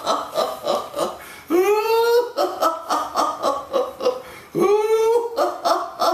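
A man laughing in a cartoonish puppet-character voice: fast, rhythmic ha-ha-ha laughter, broken twice by a long, rising whoop, about a second and a half in and again near the end.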